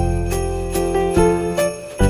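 Christmas background music with jingle bells over sustained notes and a steady beat.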